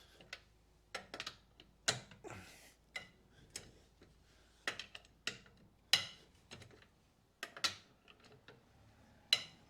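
Irregular metallic clicks and clinks of a socket and wrench being worked on car wheel nuts to crack them loose, about a dozen sharp ticks spaced unevenly.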